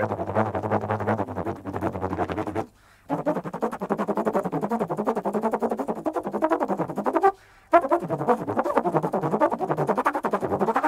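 Free-jazz trombone playing a fast, pulsing line in three phrases, broken by two short pauses. The first phrase rides on a steady low drone; the later two move up and down in pitch.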